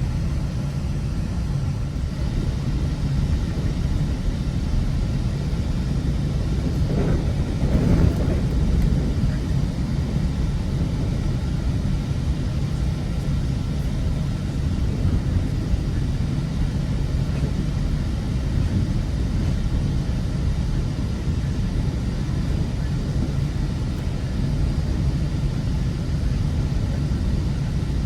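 Steady low rumble of a GO Transit passenger train rolling along the track, heard from inside the coach, swelling briefly about seven seconds in.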